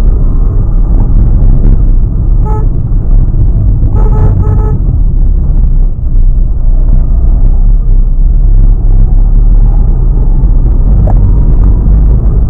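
Renault Kwid's 0.8-litre three-cylinder engine and road noise heard from inside the cabin while driving, a steady rumble. A car horn toots briefly about two and a half seconds in, then twice more in quick succession about four seconds in.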